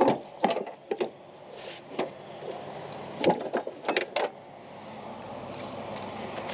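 Lifting straps and their metal hook handled against an overturned car's underbody: a handful of sharp knocks and clatters, clustered near the start and again about three to four seconds in, over a steady engine hum.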